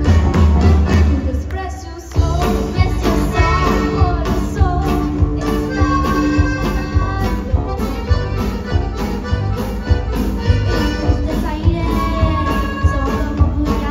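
Live conjunto music from several button accordions playing the melody over electric bass and drums. The band drops out briefly about two seconds in, then comes back in on the beat.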